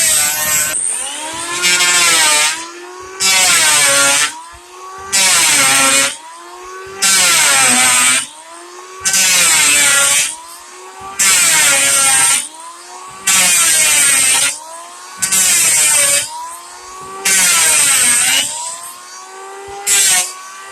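Electric wood planer making repeated cuts, about one every two seconds. Each cut is a loud rush of shaving noise lasting about a second while the motor's whine drops under the load. Between cuts the motor spins back up.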